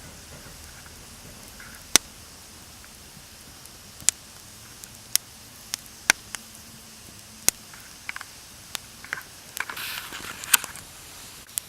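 Wood campfire crackling: sharp, irregular pops about once a second, with a brief hissing flare near the end.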